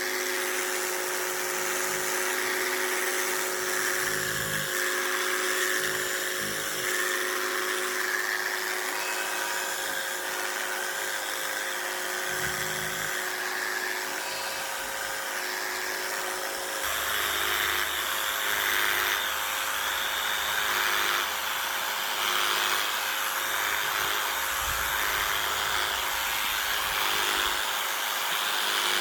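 Electric clippers running steadily while shearing wool off a sheep, a constant motor whine that turns rougher and noisier a little past halfway.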